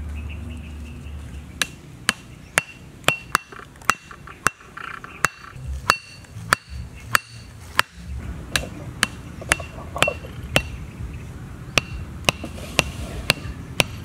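A heavy blade striking wooden stakes again and again, driving them into the ground: about twenty sharp knocks at roughly two a second, each with a short metallic ring, with a brief pause near the end.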